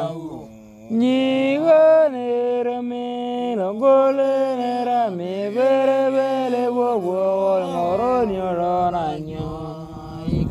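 A voice singing an Otuho (Lotuko) song in a chant-like style, holding long notes that glide up and down between pitches. There is a short break before the singing resumes about a second in.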